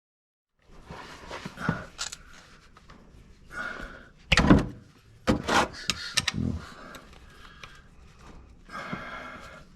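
Metal knocks and clunks of a wrench being worked on a tight fastener under a car, the loudest knock about four and a half seconds in.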